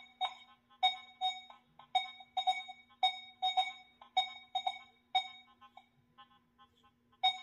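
Nokta Makro Legend metal detector in Multi-2 frequency mode sounding short target beeps at one pitch, about two a second, as its coil passes over a small piece of gold. The beeps thin out and grow faint about five seconds in, with one more near the end, over a steady low hum.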